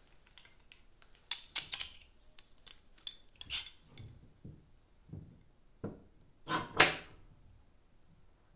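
Steel C-clamps handled and set against a plywood stiffener and transom: a scattering of metal clinks and wooden knocks, with a longer rattle about two-thirds through that is the loudest.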